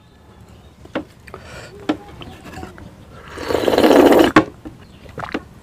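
A person loudly slurping curry gravy straight off a plate with the lips: one noisy slurp lasting about a second, a little past halfway, ending in a sharp smack. A few short clicks and smacks come before it.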